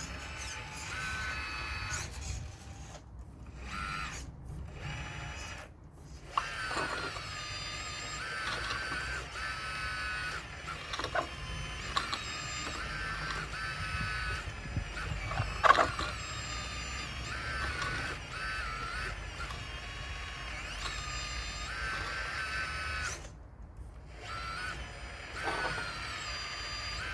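RC Caterpillar excavator model working at a stone wall: its electric motors whine in short stretches at a few steady pitches that step up and down as the arm and bucket move. A few sharp knocks come through, the loudest about two thirds of the way in.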